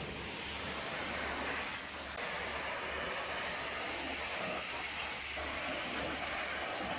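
Pressure-washer lances spraying water against a truck cab's steps and wheel: a steady hiss of spray.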